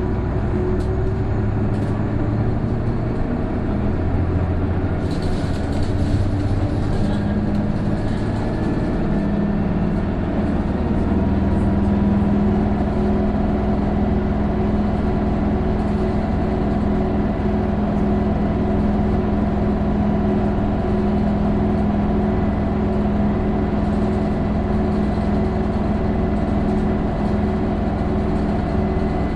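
Isuzu Erga city bus's turbocharged inline-six diesel pulling steadily uphill, heard from inside the cabin. Its engine note holds nearly steady with a slight rise early on, and a thin high whine sits over it from about halfway. This whine is the bus's characteristic abnormal noise, which comes in once the turbo boosts from about 1300 rpm and is likened to an Aisin automatic gearbox whine.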